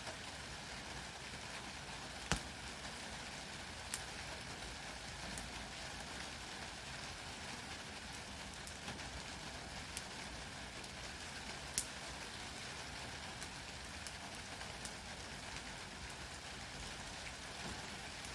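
Fatwood fire burning in a fire pit: a steady hiss with sharp, irregular crackling pops every second or few seconds.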